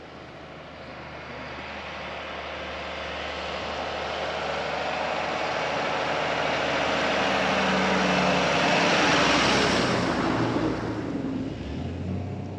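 Tour bus approaching and driving past: engine and tyre noise growing louder over about nine seconds, then falling away quickly as it goes by.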